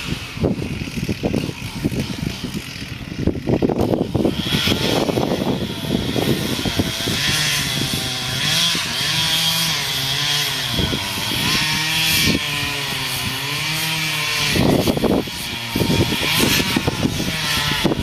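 Chainsaw engine running hard with its pitch rising and dropping, as when cutting, with a series of knocks and cracks in the first few seconds and again near the end.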